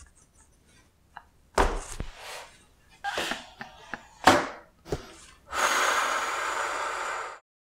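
A woman laughing helplessly in a few short, breathy bursts and gasps. Near the end comes about two seconds of steady rushing noise that cuts off abruptly.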